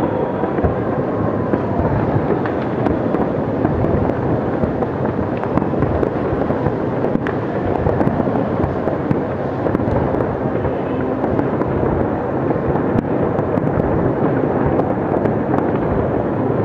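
A large fireworks display, with many aerial shells bursting in quick succession. The bursts merge into a continuous rumble, with occasional sharper cracks.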